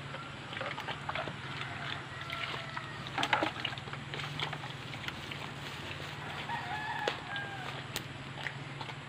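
Pig eating wet feed from a metal bowl: wet chewing and clicking, loudest about three seconds in. Chickens clucking and a rooster crowing can be heard in the background, twice.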